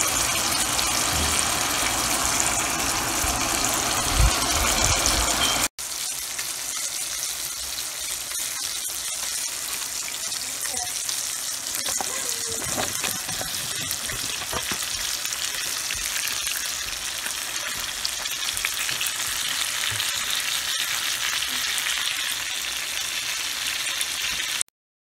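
Steaks sizzling in hot oil in a skillet. After a sudden break about six seconds in, the sizzle goes on a little quieter while sliced green peppers, onion and mushrooms go into the pan, then cuts off abruptly near the end.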